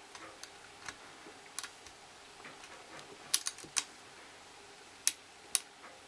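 Lock pick and tension wrench working the pins of a Kwikset pin-tumbler lock fitted with spool pins: faint metallic ticks, then sharper clicks, three in quick succession a little past three seconds and two more near the end.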